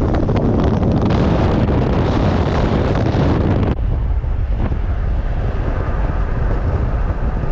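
Wind buffeting the microphone over the rumble of a vehicle driving on the road. A little past the middle, the higher hiss drops away abruptly, leaving a steady low rumble.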